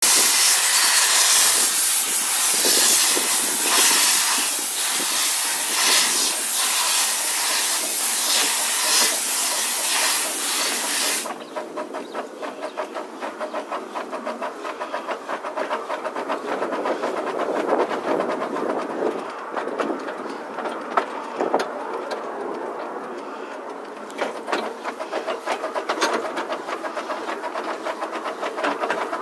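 Loud steam hiss from a narrow-gauge steam train for about the first eleven seconds, cutting off suddenly. After that the train runs on more quietly, its wheels clicking in a quick, even rhythm on the track, heard from aboard a carriage.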